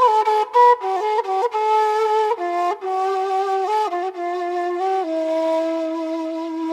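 Background flute music: a single melody moving note by note, settling on a long held note near the end.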